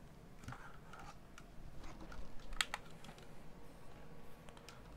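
Scattered light clicks and taps from folding knives and a digital kitchen scale being handled and set down on a rubber mat, with a couple of sharper clicks about halfway through.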